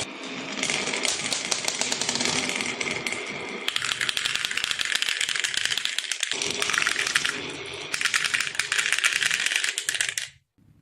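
Many marbles rattling and clicking as they roll down a marble run track, a dense rapid clatter that cuts off suddenly near the end.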